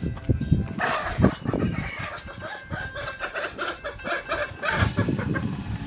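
Chickens clucking and a rooster crowing, starting about a second in, over low knocks of handling.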